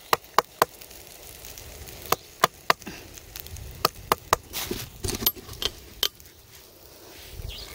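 Metal lid of a stuck jar being knocked against a driftwood log to loosen it: sharp wooden knocks in quick runs of about three, repeated four times.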